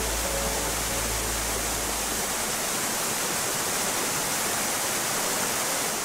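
Waterfall: a steady rushing hiss of water falling over rock. The last notes of background music fade out within the first second.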